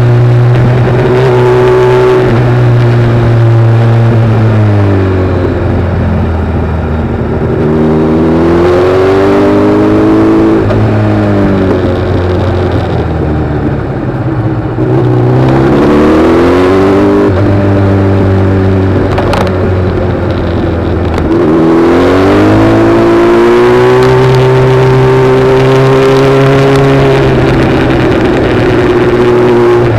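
Vehicle engine running continuously under way, its pitch rising in several long climbs and dropping back between them, with a few sudden steps down in pitch.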